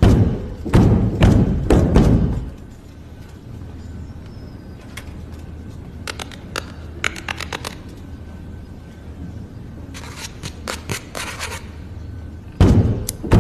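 Deep drum hits from a dramatic film score, a few heavy strikes at the start and again near the end. In the quieter middle come runs of quick sharp clicks: calculator keys being tapped fast.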